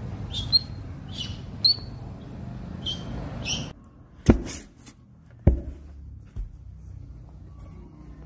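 Baby otter chirping: about five short, high-pitched peeps over the first few seconds. Then a few sharp knocks.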